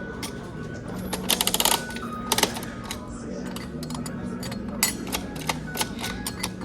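Coin-operated vending machine being worked by hand: rapid clicking and ratcheting of its coin mechanism and turning crank about a second in, then scattered single clicks. The machine works but does not dispense.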